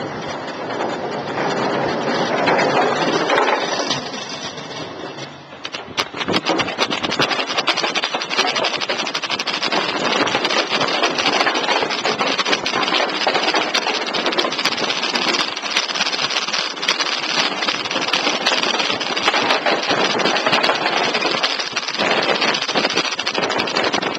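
Kick scooter's small wheels rolling along a footbridge deck: a steady rolling rumble that, from about six seconds in, is heard up close and is full of rapid clicking and rattling.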